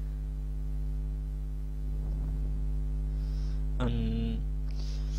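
Steady electrical mains hum on the recording: a constant low drone with a few fixed higher tones above it. A short voiced sound comes briefly about four seconds in.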